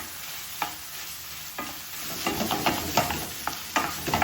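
Diced chicken breast frying with onions and garlic in butter and oil in a sauté pan, a steady sizzle. A utensil stirs it, knocking and scraping against the pan a few times at first and then in quick succession from about halfway through.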